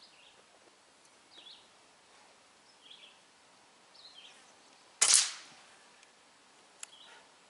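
A single QB air rifle shot about five seconds in, a sharp crack that dies away within half a second, with a few faint bird chirps around it.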